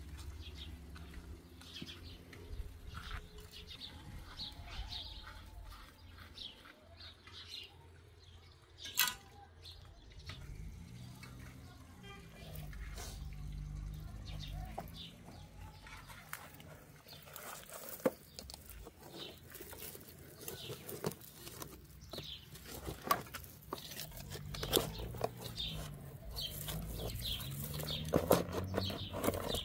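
Handwork in dry soil: a small trowel scraping and knocking in a plastic planter box, with scattered sharp knocks, the loudest about 9 and 18 seconds in. Small birds chirp in the background.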